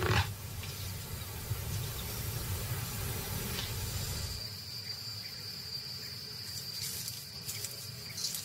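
Dry-grass savanna ambience: a soft even hiss over a low rumble, with a steady high-pitched insect drone that comes in about halfway through.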